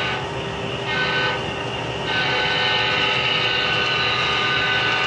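Diesel horn from an HO-scale model locomotive's onboard sound system, played through its small speaker: a short blast about a second in, then a long held blast starting about two seconds in.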